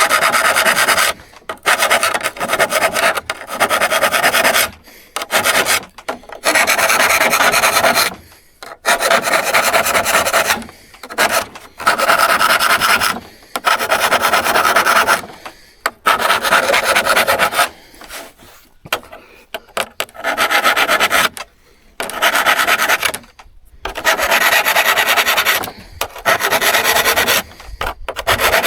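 A hand file rasping on a steel saw in long, repeated strokes, each lasting one to two seconds with a short pause between them, as the saw is worked by hand.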